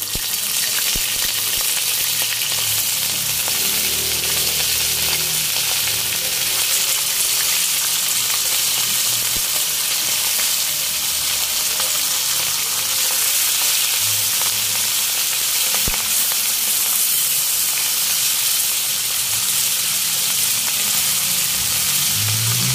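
Dried salted fish (tuyo) sizzling steadily in hot cooking oil in a wok, with more fish laid in with tongs.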